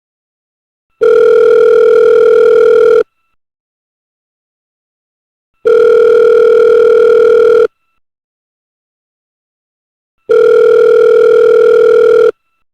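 Telephone ringback tone, the ringing a caller hears after dialling: three steady electronic rings of about two seconds each, with about two and a half seconds of silence between them.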